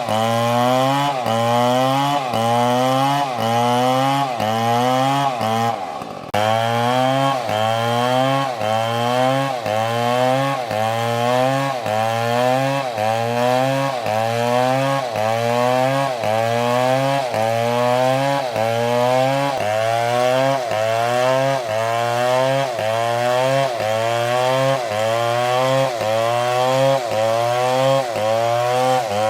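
MS720 chainsaw running under load in a cut. Its engine note dips and recovers in a steady rhythm about once a second, with a brief break about six seconds in.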